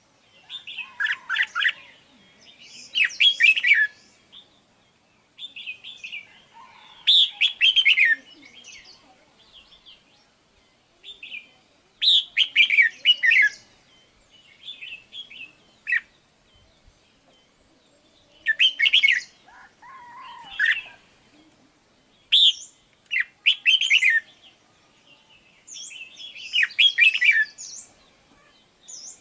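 Red-whiskered bulbul singing: short, bright, chirpy warbled phrases of about a second each, repeated every one to three seconds.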